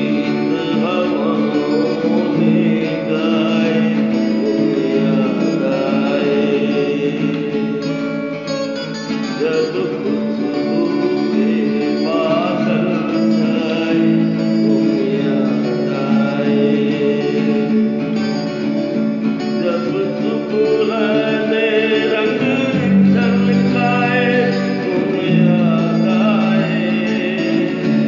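An unplugged song: a strummed acoustic guitar with a man singing over it.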